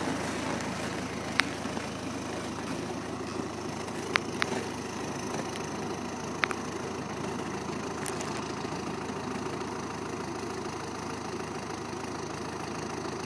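Snowcat's engine running steadily, with a few sharp knocks over the first half.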